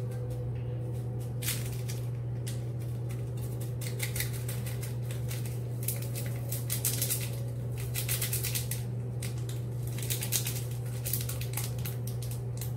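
Hands fiddling with small slime-kit packaging: scattered light crinkles and clicks, busiest a little past the middle, over a steady low hum.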